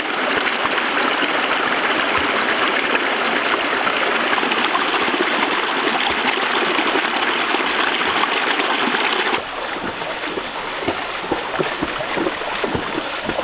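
Small forest stream running over rocks in a little cascade, a steady rush of water. About nine seconds in it drops to a quieter, more uneven flow.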